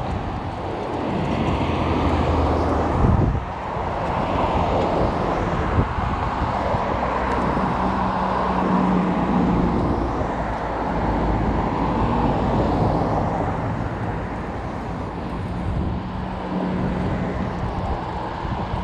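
Road traffic at a city intersection: cars drive past with steady tyre noise and engine hum, the hum swelling and fading as vehicles come and go.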